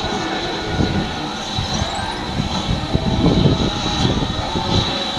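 BR Standard steam locomotive moving slowly under steam, its exhaust puffing, loudest about three seconds in.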